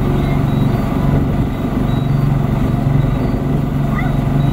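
19-foot Robalo's outboard motor running steadily as the boat travels under way, a low even drone under the rush of wind and water. Two short rising chirps near the end.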